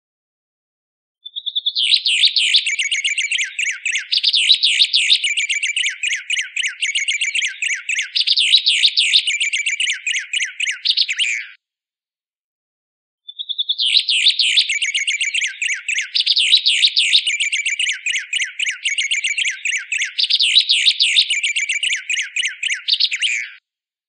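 A White Singer songbird's recorded song: each bout opens with a short steady whistle and runs into a fast, continuous run of chattering, trilling notes. The same roughly ten-second bout plays twice with a second and a half of silence between, as a looped masteran training recording.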